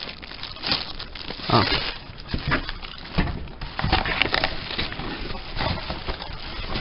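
Packaging being handled during unboxing: irregular crinkling, rustling and crackling, with a few short knocks.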